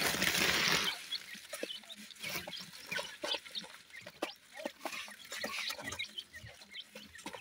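Teetar (partridge) chicks cheeping softly, with many short clicks as they peck and scratch at grit. A brief flurry of wing flapping is the loudest sound, in the first second.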